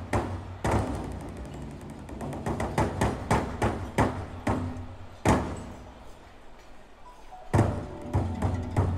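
Large red Chinese barrel drum beaten with sticks, about two strikes a second, ending on one heavy stroke about five seconds in. After a short pause, the drumming starts again near the end.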